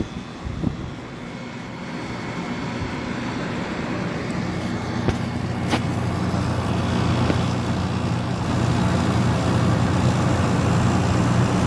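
Kenmore 8000 BTU window air conditioner running on cool: the compressor hums low and the fan blows steadily, growing louder over the first several seconds. A few light clicks sound along the way.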